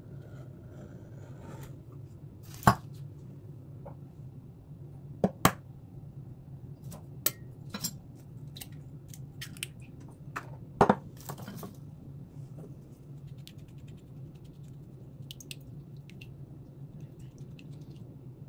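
Sharp clicks and knocks of kitchen utensils and a bowl being handled on a worktop, the loudest a double knock about eleven seconds in, followed by faint quick ticking of an egg being beaten in a small bowl with a pastry brush. A steady low hum runs underneath.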